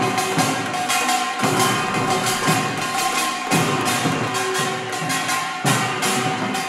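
Korean pungmul farmers' band playing: small hand gongs (kkwaenggwari) clanging in a fast, busy rhythm over drums, with a deeper stroke about every two seconds and a steady held tone above.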